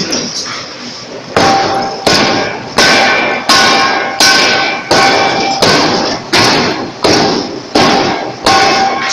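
C41-2000 kg pneumatic forging hammer striking a large red-hot round steel billet, starting about a second and a half in and then delivering steady, evenly spaced blows, about one and a half per second. Each blow rings metallically.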